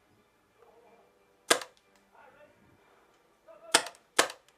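Paintball pistol shots: three sharp pops, one about a second and a half in and two in quick succession near the end.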